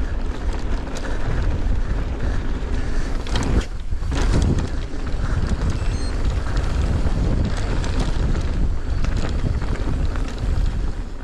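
Wind buffeting the action camera's microphone as the mountain bike rolls along at speed: a steady, loud low rush with scattered clicks and rattles.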